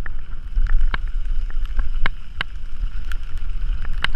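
Mountain bike descending a dirt trail: wind rumble on the microphone and tyre noise on dirt, with frequent sharp rattles and clacks from the bike over the bumps.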